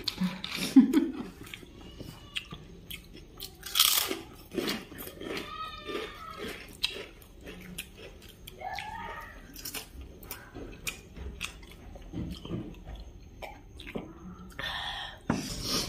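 People biting and chewing food close to the microphone, with many small mouth clicks throughout. A few louder, sharper noises stand out: one near the start, one about four seconds in and one near the end.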